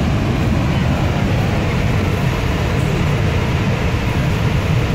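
Niagara's Horseshoe Falls: the river pouring over the brink, a loud, steady rush of water that is heaviest in the deep low end.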